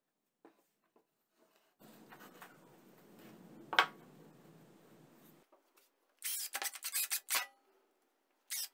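Wooden pieces sliding and rubbing on a plywood worktop, with one sharp knock of wood set down in the middle. Then a cordless drill/driver runs in short clattery trigger bursts, driving screws that fix a circular saw's base plate.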